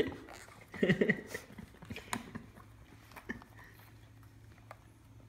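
Board lids being handled on crimped aluminium foil takeout trays: scattered crinkling and sharp clicks, loudest in a cluster about a second in, then a few sparser clicks.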